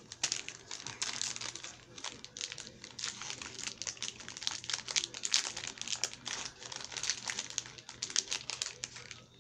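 Plastic wrapper of a Salted Caramel Milky Way bar crinkling as it is opened by hand, a dense run of quick, uneven crackles.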